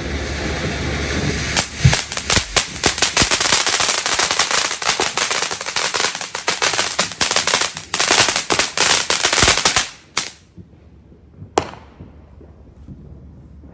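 Firecrackers going off. A rising hiss gives way to a long run of rapid, crackling pops lasting about eight seconds, which stops suddenly, followed by two single pops.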